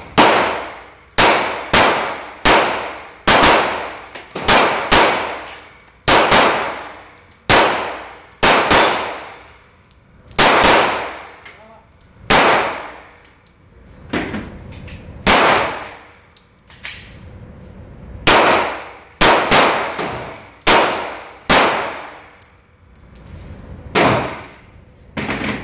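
Two handguns firing about thirty shots at an uneven pace, roughly one a second, each shot a sharp crack that rings and echoes off the walls of an indoor range.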